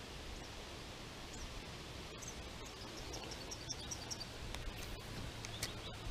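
Faint outdoor ambience: a steady hiss and low rumble, with a scatter of short, high chirps through the second half.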